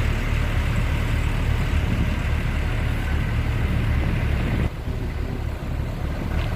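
Diesel engine of heavy road-construction machinery running steadily with a low rumble. About three-quarters of the way through, the sound drops suddenly in level and loses its higher hiss.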